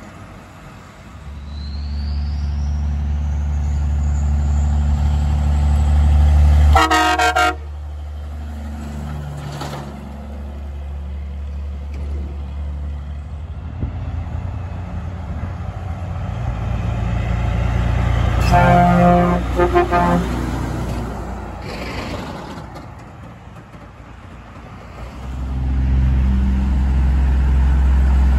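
Semi trucks' diesel engines running as they drive past, with two air-horn blasts sounding as a chord: a short one about seven seconds in and a longer one about two-thirds of the way through. Near the end another truck's engine grows louder as it approaches.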